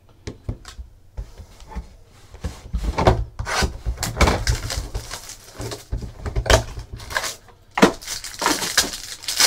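Trading cards and cardboard card packaging being handled on a tabletop: irregular taps, knocks, slides and rustles as cards and a box are moved and set down.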